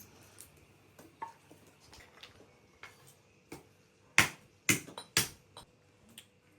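A run of light, irregular taps and clicks, with three louder sharp knocks about half a second apart around two-thirds of the way through.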